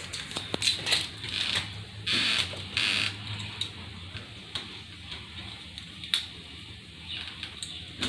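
Clicks, knocks and scraping of metal door lock and handle parts being handled and fitted, with two short rasping bursts about two and three seconds in.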